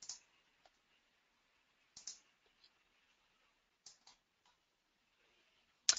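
Faint computer mouse clicks: one about two seconds in, then two close together about four seconds in.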